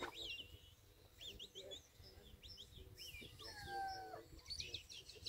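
Small birds chirping and singing on all sides in short, quick, rising and falling phrases. About three and a half seconds in comes one louder, lower, drawn-out tone that falls in pitch and then holds for about half a second.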